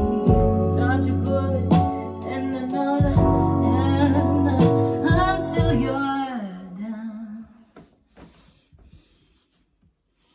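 A woman freestyle-singing into a handheld microphone over a recorded beat with a heavy bass line. About six seconds in the beat stops, her voice slides down into a held low note, and then it falls quiet, leaving only a few faint knocks.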